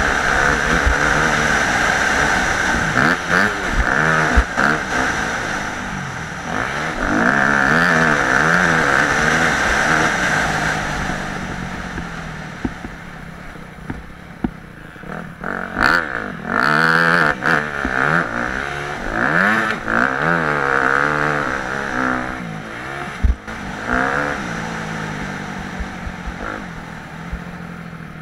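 Yamaha YZ250F four-stroke single-cylinder motocross bike with an FMF slip-on exhaust, heard from the rider's helmet, revving up and backing off over and over as it is ridden around the track, with scattered sharp knocks. It quietens in the middle and again toward the end as the throttle is eased.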